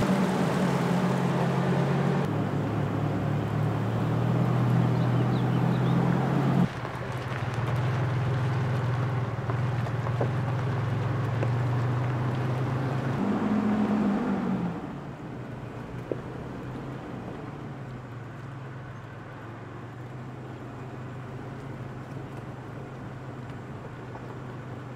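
Pickup truck engine running steadily as the truck drives, with water splashing around the tyres in a creek crossing over the first couple of seconds. The engine hum drops noticeably quieter about halfway through.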